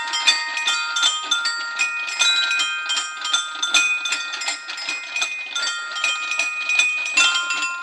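Bell-like chiming: many metallic tones struck in quick succession, each ringing on and overlapping the next.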